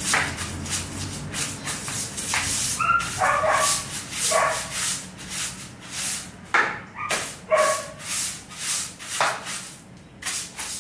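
Stiff-bristled broom scrubbing a soapy tiled floor and wall base in quick strokes, about two a second, with a few short high squeaks between strokes.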